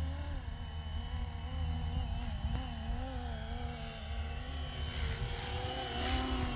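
Electric RC helicopter with a two-bladed main rotor in flight: a steady motor-and-rotor whine whose pitch wavers slightly as the speed is held. It grows louder with a rush of rotor noise as the helicopter passes close about five to six seconds in, over a low rumble of wind on the microphone.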